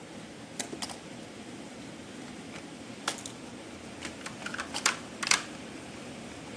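Scattered small clicks and taps of objects being handled: a couple early on, one about three seconds in, then a quick cluster from about four seconds, the sharpest near the end of it, over a steady low background hum.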